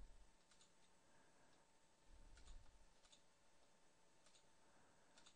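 Near silence: room tone with a few faint computer mouse clicks spaced through it, and a soft low rumble about two seconds in.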